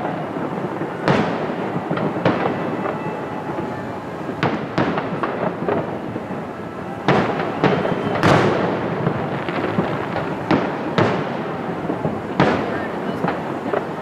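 Aerial fireworks shells bursting, a dozen or so bangs at uneven intervals, several in quick pairs, over a steady background hiss.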